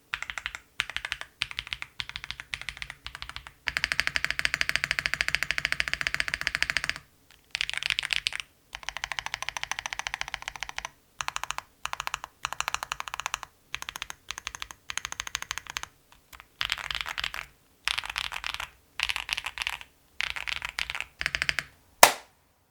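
Typing on a Tofu60 2.0 60% mechanical keyboard fitted with Atomic Purple keycaps: runs of rapid keystroke clicks broken by short pauses, with one long fast run about four seconds in. Near the end comes a single sharp, louder click.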